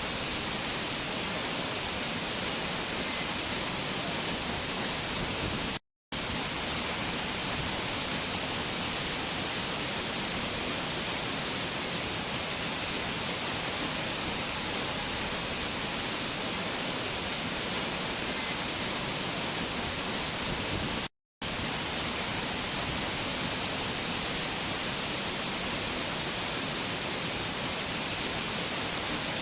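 Waterfall cascading in a steady, even rush of falling water. The sound drops out to silence for a split second twice, about six seconds in and again about twenty-one seconds in.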